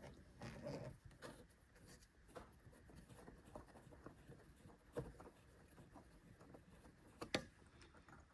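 Near silence with faint, scattered clicks and light scrapes of a screwdriver working the screws that hold the indicator stalk on the steering column. Two slightly sharper clicks come about five and seven seconds in.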